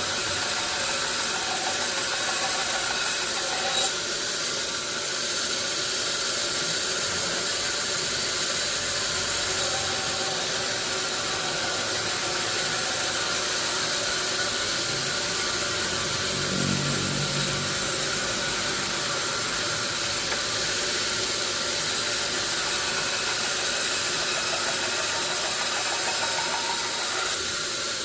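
Sawmill machinery running, a steady, continuous mechanical noise with a constant hum and hiss, and a brief deeper hum partway through.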